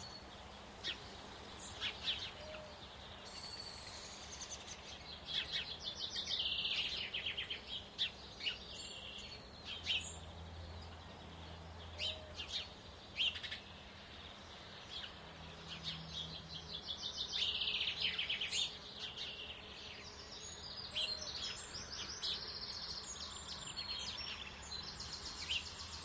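Small songbirds singing in several bursts of rapid, high trilling notes, with scattered sharp taps.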